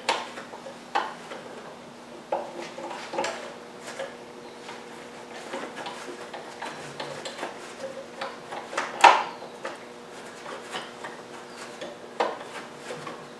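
Steel saw-chain links of a Stihl MS 290 chainsaw clinking and rattling against the sprocket and a metal positioning bar as the chain is worked back on. Scattered light clicks, the sharpest about nine seconds in.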